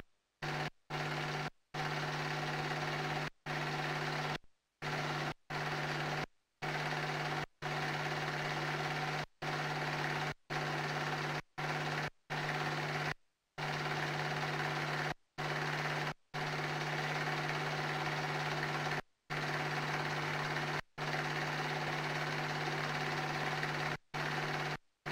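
Steady mechanical whirr and hum of a film projector running, with a strong low drone. The sound cuts out abruptly to silence for split seconds many times, about every one to two seconds.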